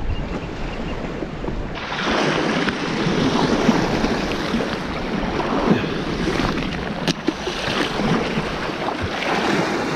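Sea surf washing and breaking over shoreline rocks as a steady hiss of water. Wind rumbles on the microphone for about the first two seconds.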